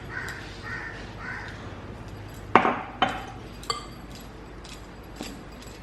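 Wooden spoon stirring flour and water into a dough in a bowl, with soft scraping and a few sharp knocks of the spoon against the bowl, the loudest about halfway through.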